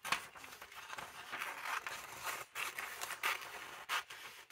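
Paper pages of an old magazine rustling and crinkling as they are handled and turned, in a run of short, uneven papery rustles and scrapes.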